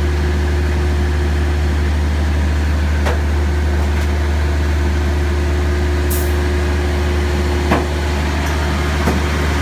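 Crane drive machinery running steadily: a loud, even low hum with a steady higher tone over it, and a few faint clicks.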